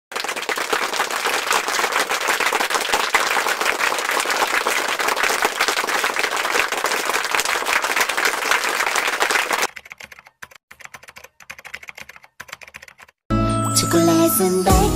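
Sound effects over a vlog's title cards. A loud, dense crackle runs for about ten seconds, then a few seconds of sparse separate clicks, like typing, come as the text types onto the screen. Acoustic guitar music starts near the end.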